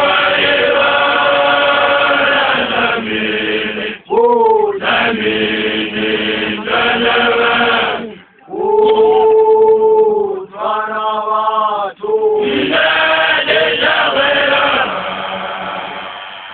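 A group of voices chanting together in traditional Xhosa song. They hold long notes in phrases of a few seconds, broken by short breaths, and some phrases end with a downward slide in pitch.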